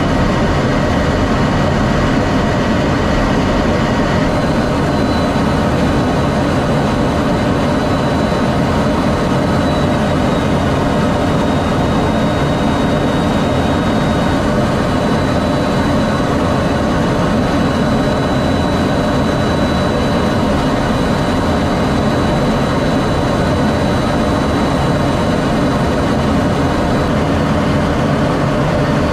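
F-16D Fighting Falcon jet noise, a steady, unbroken rumble and rush, with a faint thin whine that steps up in pitch about four seconds in.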